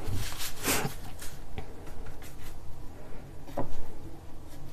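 Bristle brush stroking thick oil paint onto canvas: several short brushing swishes, the brightest just under a second in.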